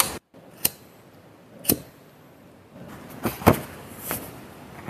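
A handful of sharp clicks or knocks, spaced about a second apart, over a faint hiss that grows into a louder rustling noise in the second half.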